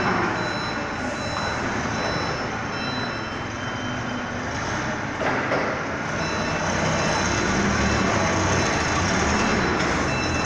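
Forklift engine running while it drags and lifts a pallet, its reversing beeper sounding in short repeated beeps. A single knock about five seconds in.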